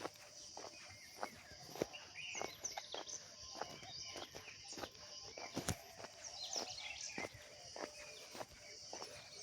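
Footsteps on a village road at walking pace, about one step every half second, while small birds chirp and twitter all around over a steady high insect hiss.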